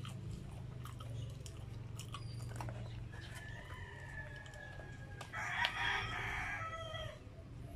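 Close-up eating sounds: small clicks of fingers working rice and fried chicken, and chewing. Over them a long drawn-out call starts about three seconds in and turns loud and harsh for its last couple of seconds.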